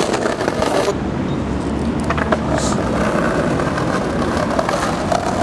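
Steady rolling rumble of wheels on paving.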